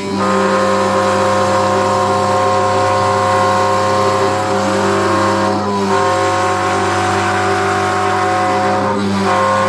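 500 W ER11 spindle motor of a desktop CNC router running at about half speed, its 3 mm bit milling a path through wood: a steady whine made of several tones. The tones shift briefly about halfway through and again near the end.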